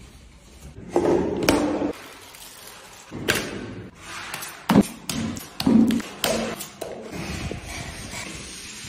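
A series of sharp knocks and thumps from drywall work, among them steel taping knives knocking and scraping against plastic buckets of joint compound.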